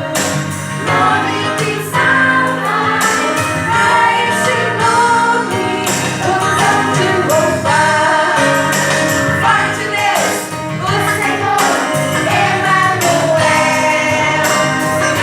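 Voices singing a Christian Christmas song over a rhythmic accompaniment with a steady beat.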